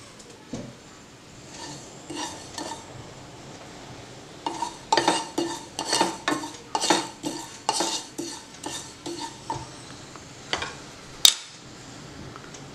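Flat wooden spatula stirring fennel seeds as they dry-roast in a nonstick frying pan, the seeds scraping and rattling across the pan. The strokes are faint at first, then come quicker and louder, about two a second, through the middle, with a single sharp tap near the end.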